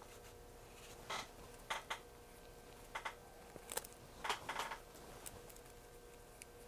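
Light clicks and taps of small plastic robot-kit parts and connector cables handled and set down on a workbench: a scattered handful of short, sharp ticks over a few seconds.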